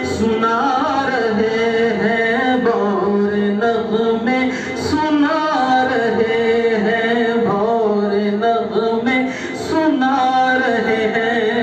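A man singing a Sufi devotional song into a handheld microphone, drawing out long, wavering notes that glide up and down in pitch.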